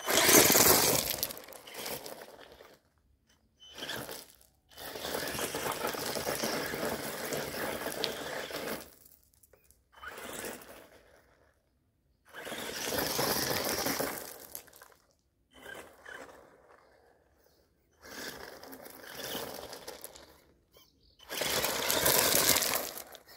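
Brushless Traxxas E-Revo VXL RC truck driving hard over loose gravel: tyres crunching and throwing stones while the electric drive runs. It comes in about eight bursts of one to four seconds, with short silent gaps between them.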